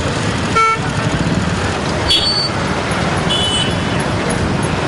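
City road traffic with motorcycle engines running, a steady rumble. A short horn toot sounds about half a second in, and brief high-pitched beeps come twice later.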